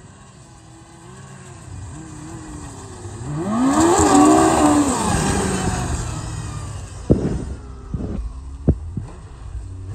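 A snowmobile approaches and passes by at speed. Its engine note climbs in pitch as it nears, is loudest about four seconds in, and drops as it goes away. A few sharp thumps follow near the end.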